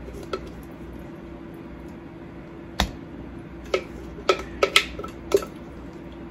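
Sharp clinks and taps of a spoon against kitchen containers while spices are scooped out for a marinade, scattered through and coming several in quick succession in the second half, over a steady low hum.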